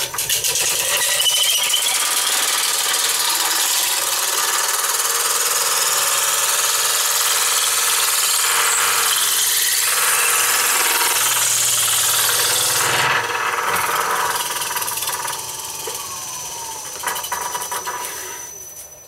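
Veritas dowel maker's blade shaving a square wood blank, spinning in a lathe chuck, into a 3/8" round dowel: a loud, steady hissing cut. It eases off after about thirteen seconds and dies away near the end as the cut finishes.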